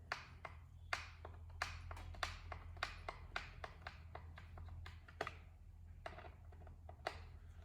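Irregular light clicks and taps, one or two a second, of hand tools and small parts being handled while a chainsaw is worked on, over a low steady hum.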